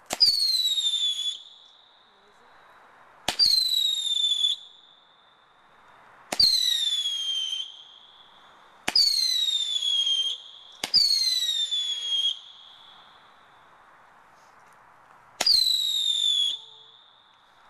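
Whistling fireworks going off one after another: each a sharp crack followed by a shrill whistle of about a second that falls in pitch. Six go off, two to four seconds apart.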